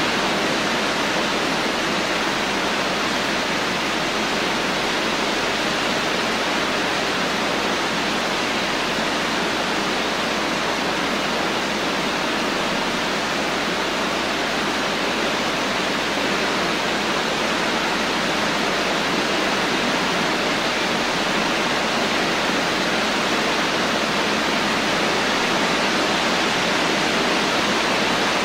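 Rain falling as a steady, even hiss.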